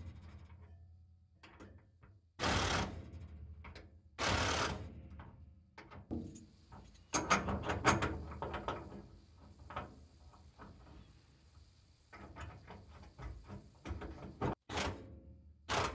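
A handheld power tool with a socket running in two short bursts on the nut of a Porsche 911 steering shaft, then clinks and clicks of metal parts handled by hand, with a run of quick clicks near the end.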